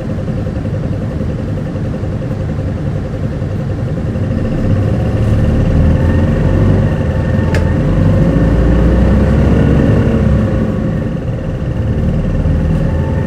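Onboard an Isuzu Erga city bus (QKG-KV290N1): its diesel engine is running and pulls harder from about four seconds in, loudest around the middle, then eases off. A single sharp click comes about halfway through.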